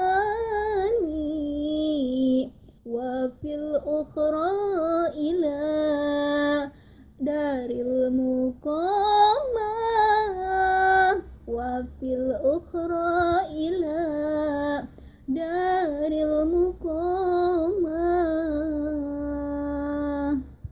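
A young woman singing a sholawat (Islamic devotional song) solo, in phrases with ornamented, gliding turns and long held notes, broken by short breaths.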